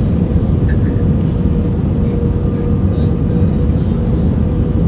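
Steady cabin noise of an Airbus A319-111 on approach, heard from inside at a window seat over the wing: a low, even rumble of engines and airflow, with a faint steady hum riding above it.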